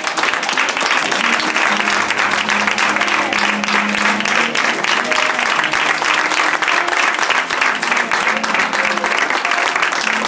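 A congregation applauding steadily, with instrumental music playing softly underneath.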